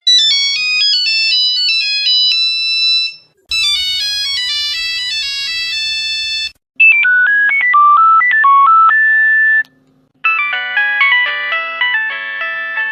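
Nokia mobile phone ringtones played one after another: four short melodies of quick electronic notes, each about three seconds long with a brief pause between them, the last one fuller, with several notes sounding together.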